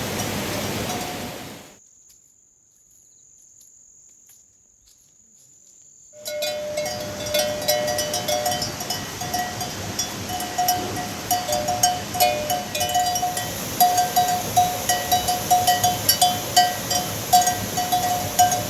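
A livestock bell clanking over and over in quick irregular strokes, over a steady rushing noise. This starts about six seconds in, after a few seconds of near quiet with a thin high whine.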